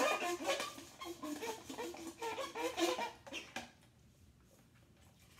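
Plastic straw squeaking in the lid of a Sonic slush cup as it is worked up and down to stir the slush: a run of short squeaks that stops about three and a half seconds in.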